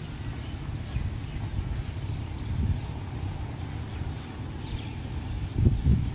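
Outdoor pond-side ambience: a steady low rumble, with a bird giving three quick high chirps about two seconds in and a couple of low thumps near the end.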